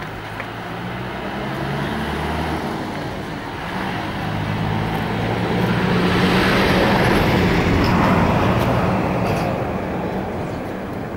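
A motor vehicle's engine passing close by: its hum and road noise swell to a peak about two-thirds of the way through, then fade.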